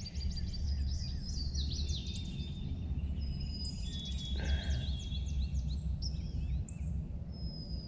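Songbirds chirping and whistling, many short calls overlapping throughout, over a steady low rumble.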